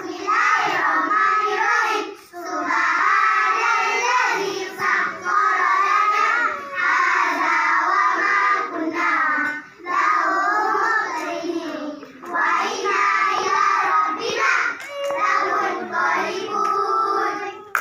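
A chorus of young children singing together in unison, in long phrases broken by a few short pauses.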